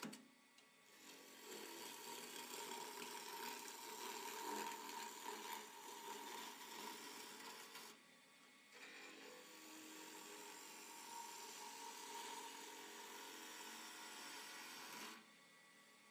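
Wood lathe spinning a spindle blank while a hand-held turning tool shaves across it, a steady cutting hiss with a faint motor whir. Two cuts, the first about seven seconds long, the second about six, with a short quiet break about eight seconds in.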